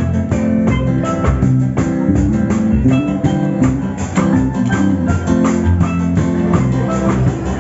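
Music with a steady drum beat and pitched instruments.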